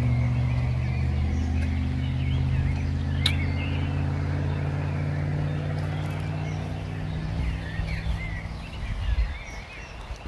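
Nissan March car engine idling with a steady low hum, stepping up slightly in pitch about a second and a half in and fading out near the end. Birds chirp over it.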